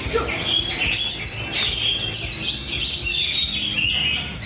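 Many caged songbirds singing at once in a contest, a dense, overlapping chatter of whistles and chirps with no break.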